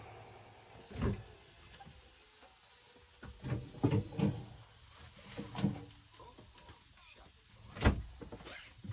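A series of irregular knocks and thumps, the loudest near the end, over a quiet background.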